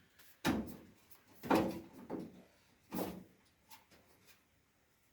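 Several knocks and clunks of a steel repair panel being handled and pushed into place against a car's bodywork: four clear knocks in the first three and a half seconds, the second the loudest, then two faint taps.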